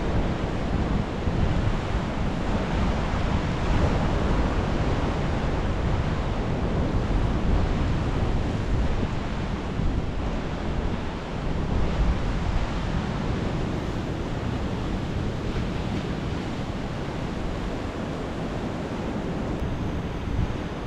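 Ocean surf washing in steadily, with wind buffeting the microphone as a low rumble.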